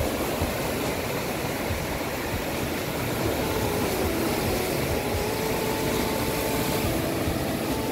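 Lake Ontario surf: choppy waves breaking and washing up a sandy beach in a steady rushing noise, with wind rumbling on the microphone.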